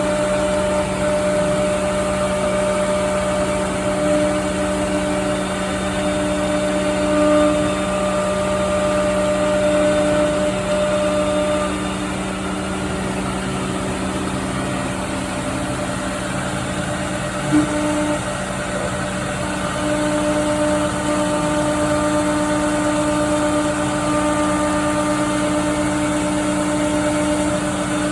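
Multicam CNC router running: a steady machine hum with several held tones, some dropping out and coming back partway through, and one short sharp click a little past the middle.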